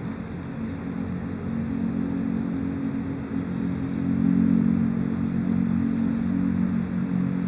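A motor engine hums steadily, swelling to its loudest about halfway through and easing off again, over a thin steady high whine.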